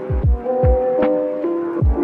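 Gentle lo-fi background music: held keyboard chords over a soft beat of low kick-drum thumps, with a sharper snare-like hit about a second in.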